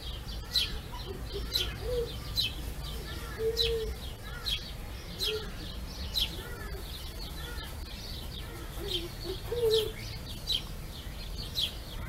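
Short, high chirping animal calls repeating about once a second, with a few lower, short calls among them, over a steady low background rumble.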